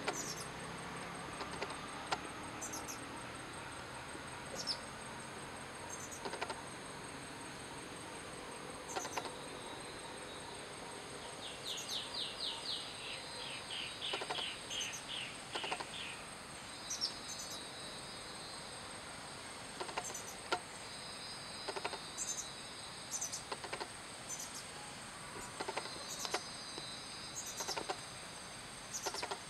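Tropical forest ambience: insects keep up a steady high-pitched drone while birds give short sharp calls every second or two. About halfway through, a bird runs off a quick series of about a dozen notes that step downward in pitch.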